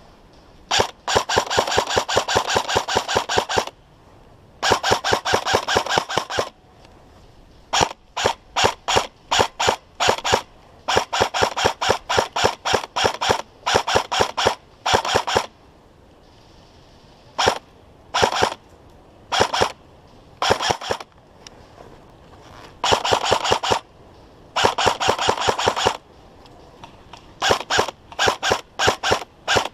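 A&K SR25 airsoft electric rifle firing: long rapid full-auto strings of a couple of seconds each, broken up by short bursts and single shots.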